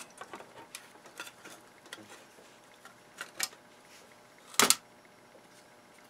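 A plastic module housing being handled and pried apart by hand: scattered small clicks and scrapes, then a loud plastic snap about four and a half seconds in as the circuit board comes free of its casing.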